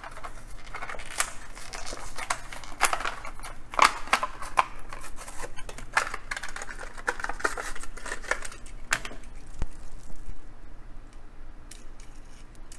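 A Hot Wheels blister card being opened: the stiff plastic blister crackling and the cardboard tearing, in a run of sharp clicks and crinkles. It dies down after about ten seconds.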